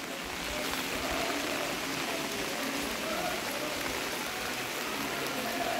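Steady rain falling: a continuous, even hiss of raindrops on stone paving and umbrellas.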